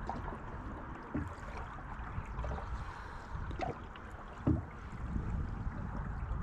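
Canoe paddling on calm water: a paddle dips and draws through the water, with a few short splashes and knocks, the sharpest about four and a half seconds in, over a steady low rumble.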